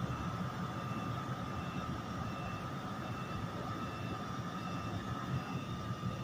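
NJ Transit ALP-46A electric locomotive standing at the platform with its equipment running: a steady low rumble with a constant high-pitched tone over it.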